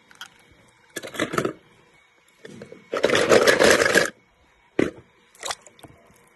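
Die-cast toy cars clattering and scraping together in a plastic basket: a short rattle about a second in, then one loud clatter lasting about a second, followed by a few single clicks near the end.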